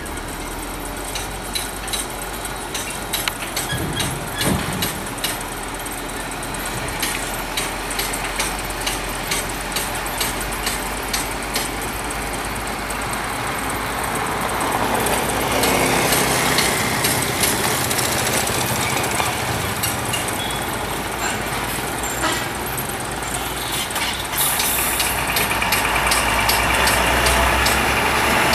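Heavy diesel trucks moving slowly on a dirt road, with a motorcycle passing about halfway through. The engine of a loaded Hino logging truck grows louder as it comes close near the end, over many small clicks and crackles.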